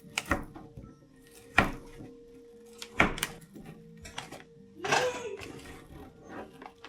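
Kitchen clatter of cooking: several separate knocks and clunks of utensils, pots or containers being handled, with a longer scraping rustle about five seconds in, over a faint steady hum.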